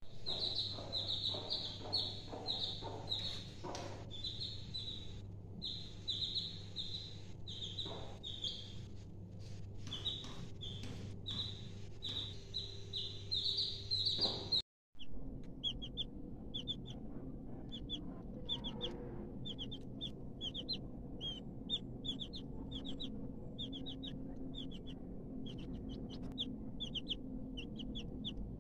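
Aseel chicks peeping: a steady run of short, high peeps, several a second, broken by a brief dropout about halfway.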